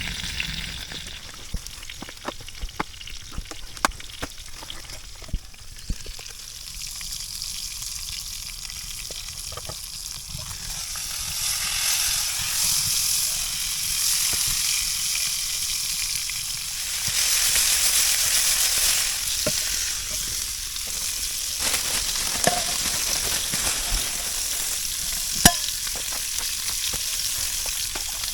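Food frying in a pan: a steady sizzle with scattered pops and crackles, swelling louder partway through, with a sharp pop near the end.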